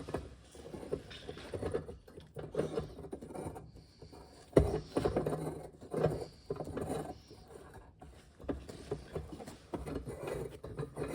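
Irregular scraping and knocking as a part is worked into the welded steel box of a gas forge, with one sharper knock about four and a half seconds in.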